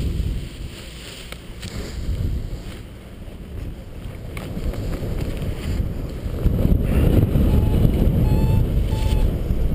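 Wind buffeting the camera's microphone during a paragliding launch run, rising to a louder steady rush about six and a half seconds in as the pilot gets airborne. Three short high beeps sound near the end.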